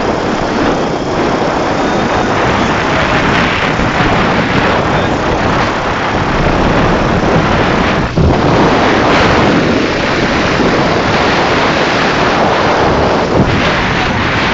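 Loud wind buffeting the microphone during a ride on a moving tricycle, with the vehicle's running noise underneath. It dips briefly about eight seconds in.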